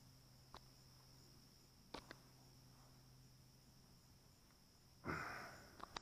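Near silence with a faint, steady high insect drone. A few soft clicks come through it, and about five seconds in there is one short swish that fades quickly.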